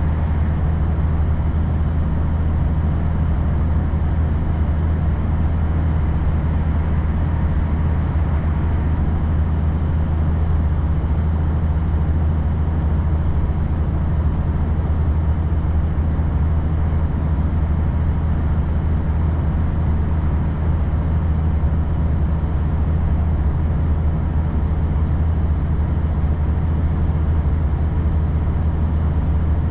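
Steady, even drone of a vehicle driving along, engine and tyre noise with a deep hum, keeping the same pace throughout with no changes.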